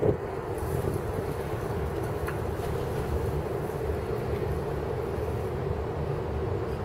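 Steady low rumble of background noise with a constant hum, with a faint tick about two seconds in.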